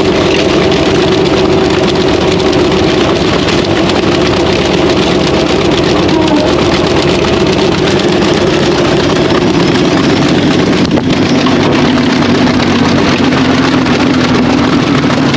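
Farm diesel engine running steadily under load, its pitch dropping a little about eleven seconds in.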